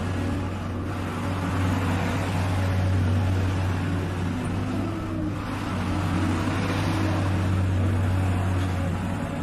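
Tata Hitachi excavator's diesel engine running under steady load, with a low drone that eases slightly twice.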